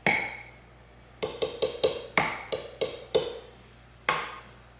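A measuring cup knocking against a mixing bowl as flour is tapped out of it. There is one loud clink at the start, then several quick runs of ringing taps, and a last tap near the end.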